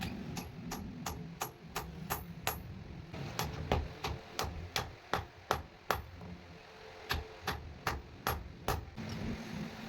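Hand hammer striking metal in quick, even blows, about three a second, each with a bright ring, in three runs separated by short pauses, ending about a second before the end. A steady low rumble runs underneath.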